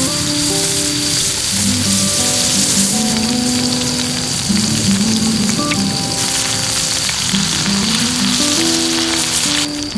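Offal (horumon) sizzling as it fries over a campfire, a dense steady crackling hiss that thins abruptly near the end. Background music with short plucked notes plays underneath.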